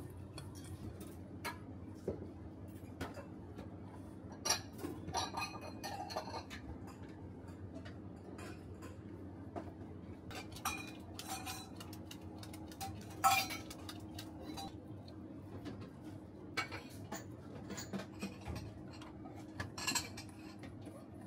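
Stainless steel mixing bowl clinking and knocking against a steel counter as gloved hands knead minced raw beef in it. The clinks come at irregular moments over a steady low hum.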